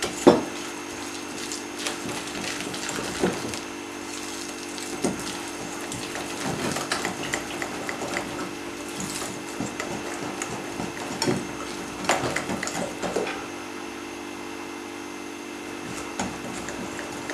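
Wire whisk beating a thick pancake batter in a glass bowl, with irregular clicks and taps of the whisk against the glass, the loudest a sharp knock just after the start. A steady low hum runs underneath.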